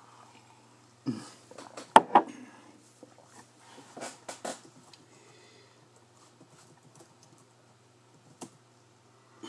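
Clicks and knocks of hands working a laptop's keyboard, loudest about two seconds in, over a faint steady low hum.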